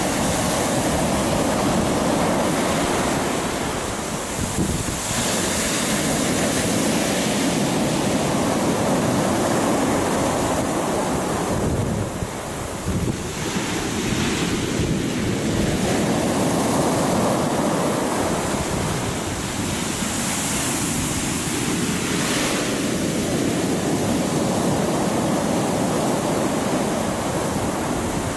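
Sea waves breaking and washing up a coarse-sand beach in a continuous surf noise. It swells with each wash of foam about every seven or eight seconds. Wind buffets the microphone underneath.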